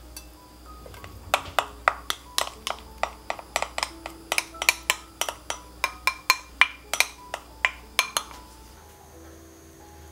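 A rapid run of light, sharp clicks, about three to four a second, starting about a second in and stopping about eight seconds in, over faint sustained tones.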